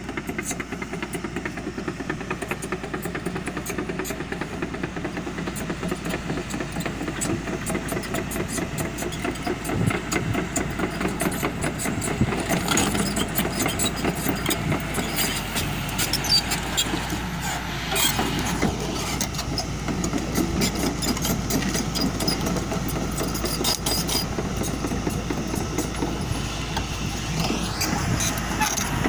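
Excavator's diesel engine running under load while digging, with a fast pulsing beat. There is a sharp knock about two-thirds of the way through, and a short rising whine near the end.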